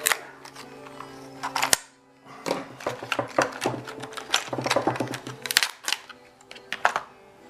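Sharp clicks and metallic clatter of a bicycle U-lock and its keys being handled, several a second at times, with a short pause about two seconds in.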